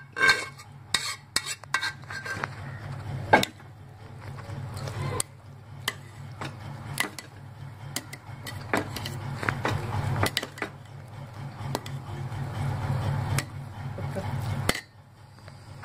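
Steel ladle clinking and scraping against a metal pot while cooked rice is stirred into biryani masala. There is a quick run of sharp clinks in the first few seconds, then slower, scattered clinks over the scraping.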